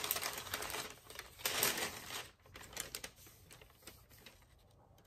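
Crinkling, rustling handling noise as hands work a gingerbread house and its candy decorations on a paper sheet: two rustling bursts in the first two seconds, then scattered light clicks and taps that die away about four seconds in.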